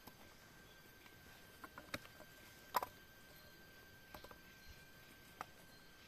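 Scattered light clicks and taps of a machete and thin bamboo strips being handled and worked, the sharpest about three seconds in, over a faint steady high tone.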